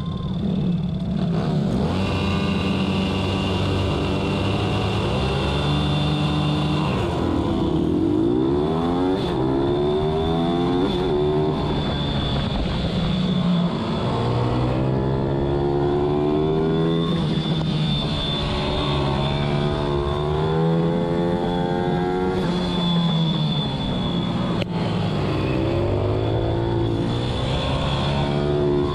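Pit bike's small single-cylinder engine at racing speed, heard from on board the bike, its revs climbing and dropping back again and again as it accelerates and slows on the track.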